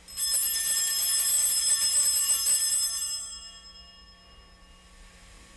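Altar bells, a cluster of small sanctus bells, shaken for about three seconds to mark the elevation of the chalice at the consecration, then ringing on and fading out over the next two seconds.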